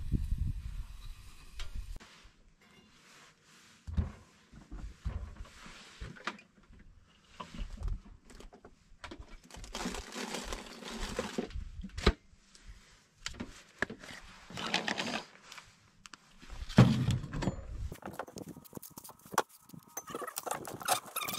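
Scattered food-preparation handling sounds: knocks and clicks of bagel halves, a bowl and utensils being handled, and rustling, with a sharp knock about twelve seconds in.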